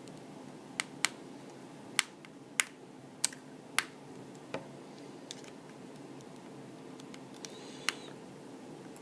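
Light, sharp clicks of a small screwdriver and tiny screws tapping on metal and the work surface while screws are taken out of an iPhone 4: about seven clicks in the first five seconds, then one more near the end, over a faint steady room hum.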